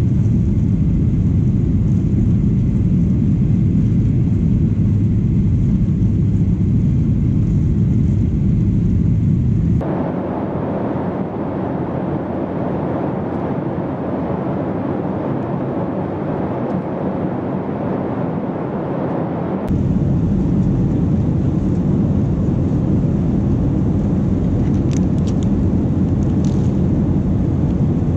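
Cabin noise inside a Boeing 737-800: a steady low rumble of its CFM56 jet engines and airflow. About ten seconds in, the sound switches abruptly to a thinner, hissier noise with less rumble, and about ten seconds later it switches back just as abruptly.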